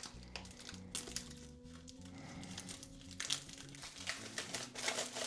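Rustling and crinkling from a large hardcover comics omnibus being handled, in irregular spurts that get busier in the second half, over quiet background music.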